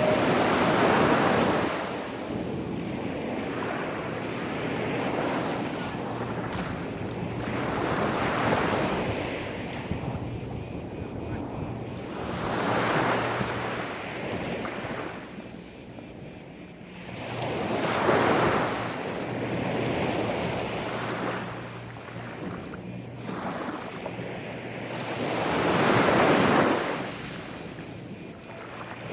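Gentle sea waves breaking and washing up onto a sandy beach, each wash swelling and drawing back every several seconds.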